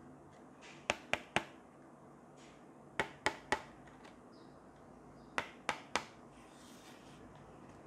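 Fingers tapping on a long cardboard product box: three quick taps, repeated three times with pauses of about two seconds, followed by a faint rustle of handling.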